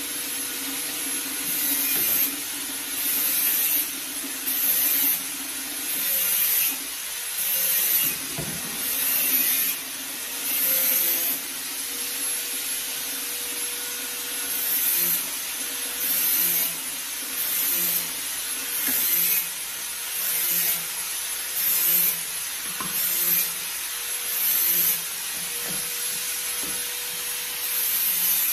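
Dishes being scrubbed by hand at a kitchen sink: repeated rubbing strokes about once a second, with a pause partway through, over a steady hiss.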